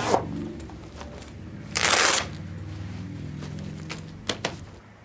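Zipper on a massage chair's padded backrest cover being pulled, with a loud rasp about two seconds in amid fabric rustling, then two quick clicks near the end.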